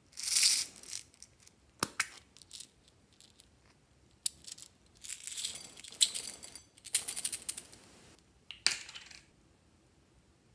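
Small plastic beads rattling in a little plastic bottle as they are shaken out into a glass bowl of slime: several bursts of bright clatter with a few sharp clicks between them.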